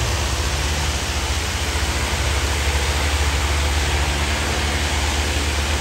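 Tractor diesel engine running steadily while pulling a heavy drag, a low even drone under a steady broad hiss.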